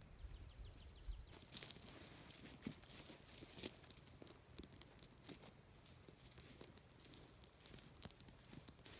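Small wood campfire crackling and snapping with many quick, irregular pops. A bird gives a short trill of falling notes at the very start.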